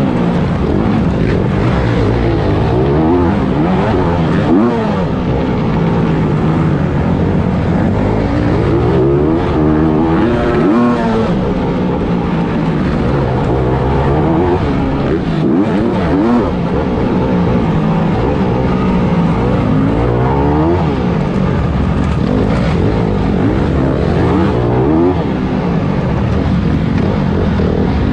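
Honda CRF250 single-cylinder four-stroke engine heard from on board, revving up and dropping back over and over as the rider accelerates and shifts gears under race load.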